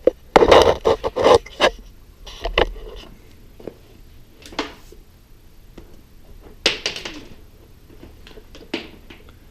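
Computer cables and plugs being handled and connected by hand: irregular knocks, rubs and scrapes, busiest in the first two seconds, with further short clusters later.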